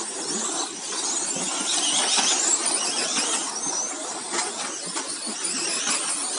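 Several radio-controlled model racing trucks running around the track, their motors whining high and gliding up and down in pitch as they speed up and slow down, overlapping one another.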